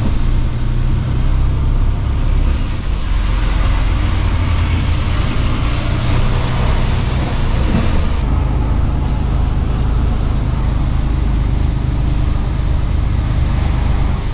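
Mercedes-Benz Actros truck's diesel engine running steadily under way at town speed, with road noise heard inside the cab. A hiss swells in the middle and drops off sharply about eight seconds in.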